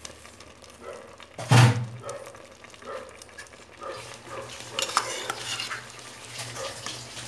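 Metal ladle scraping and knocking against a steel bowl and an aluminium pot while ghee is scooped onto biryani rice, with one loud clank about a second and a half in and lighter clinks and scrapes after it.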